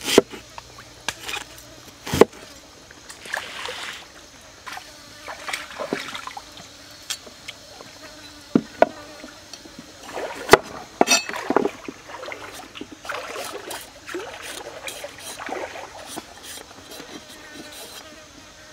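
Large cleaver-style knife slicing onion and carrot on a wooden cutting board: scattered sharp knocks of the blade striking the board, at irregular intervals.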